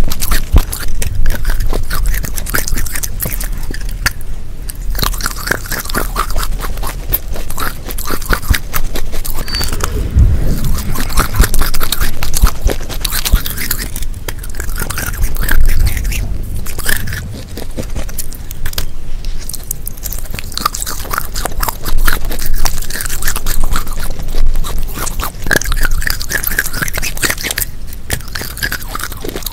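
Repeated biting and chewing of a baked earthenware (terracotta) clay dish coated in a grey clay paste: hard clay crunching and scraping against the teeth, with a quick run of crackles and clicks at each bite.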